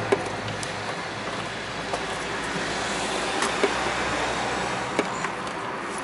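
A few short plastic clicks and knocks as a new brake booster vacuum hose connector is pushed and wiggled into its seat in the booster, over a steady background hum.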